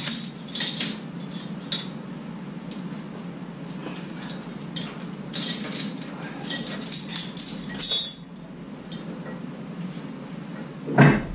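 Steel lifting rigging hardware clinking and jangling in bursts as it is unhooked from a lathe after a crane lift, over a steady low hum. One loud knock comes near the end.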